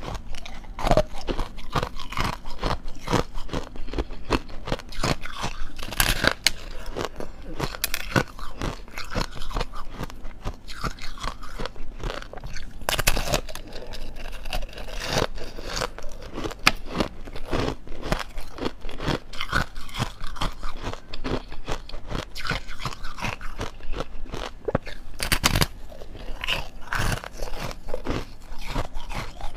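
Frozen foam ice with a thin hard ice crust being bitten and chewed: dense crunching and crackling throughout, with a few louder crunches.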